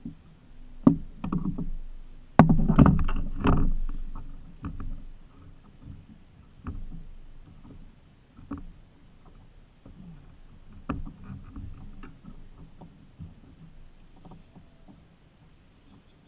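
Knocks, clicks and thumps against a plastic fishing kayak as a freshly caught striped bass is unhooked and handled. A burst of loud knocks comes two to four seconds in, then lighter scattered taps die away.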